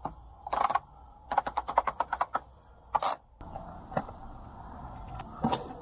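Sailboat halyard winch handled by hand: a quick run of sharp ratcheting clicks, about eight a second, as the drum is turned. This is followed by a few single knocks as the drum is lifted off its spindle.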